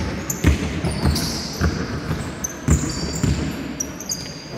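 A basketball bouncing on a sports hall floor, several irregular thumps, with sneakers squeaking on the court in between.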